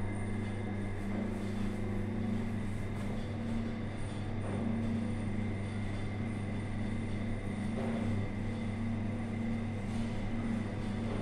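1990s Toshiba CV60 passenger lift car travelling upward: a steady low hum and running noise in the car, with a faint high whine held throughout.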